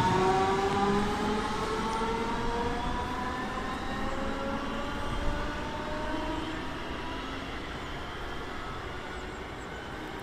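Electric train accelerating away: the whine of its traction motors, several tones together, rises slowly in pitch over a rumble, and the whole sound fades as it recedes.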